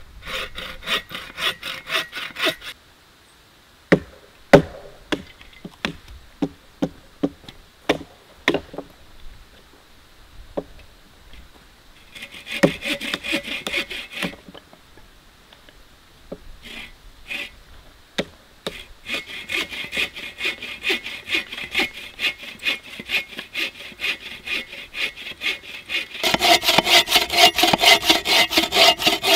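Hand saw cutting through a log in fast, even back-and-forth strokes, in several spells and loudest near the end. Between about four and nine seconds in, a run of sharp single knocks: a wooden baton striking the spine of a knife to split wood.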